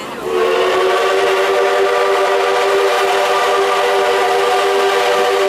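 Steam whistle of steam locomotive C61 20 blowing one long, steady blast of about five seconds, a chord of several tones at once, heard from the coaches behind through an open window.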